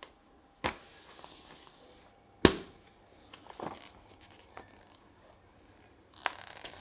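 A paper game board being handled: rustling and crackling, with a sharp crack about two and a half seconds in and smaller crinkles and clicks scattered through.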